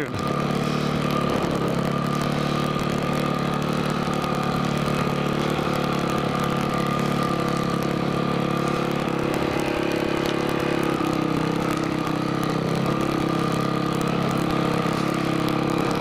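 Single-cylinder four-stroke off-road engine running steadily at low revs while the machine creeps along a rocky trail.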